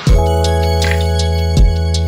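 Background music: held keyboard chords over a steady beat of deep kick-drum thumps and light ticks, coming in loud right at the start.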